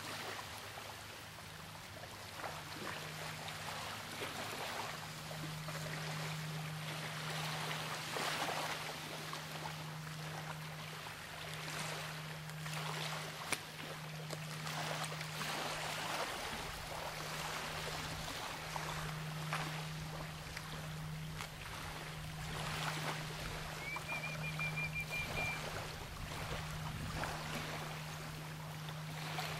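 Steady rushing of water and wind along a driftwood shore, swelling and easing, with a low steady hum underneath that fades in and out. A short high trill of rapid repeated notes sounds about 24 seconds in.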